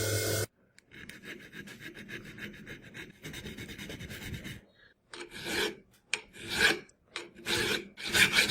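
A power tool's motor cuts off about half a second in. A hand file then rasps back and forth on the knife workpiece: first a faint quick run of strokes, then a few slower separate strokes, and near the end a steady fast run of about four to five strokes a second.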